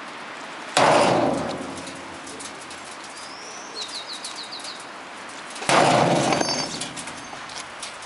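Two heavy sledgehammer blows on a dishwasher's sheet-metal body, about five seconds apart, each a loud clang that rings out for about a second. A bird chirps a quick run of high notes between the blows.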